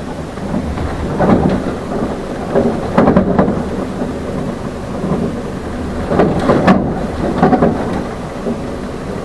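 Inside a small city bus under way: steady low engine and road rumble with irregular rattling knocks, loudest about three seconds in and again between six and eight seconds in.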